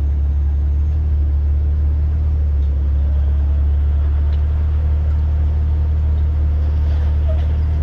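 Off-road vehicle engine running at low revs, a steady low rumble that holds an even level throughout.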